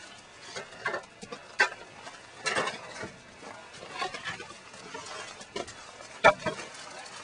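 Stoking the firebox of a wood-burning kiln: irregular knocks, scrapes and clatter of wood and a long metal rod at the fire, the loudest knock about six seconds in.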